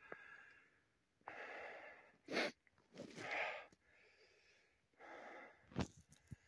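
A man breathing in and out heavily close to the microphone, about five separate breaths with short pauses between them.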